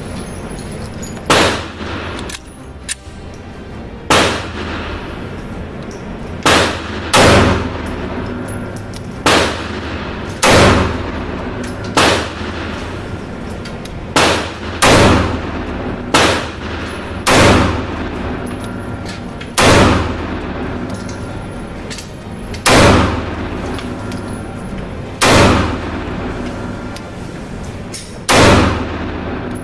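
Single gunshots, about fifteen, fired at uneven intervals of one to three seconds, each with a short echoing tail, over a steady background of music.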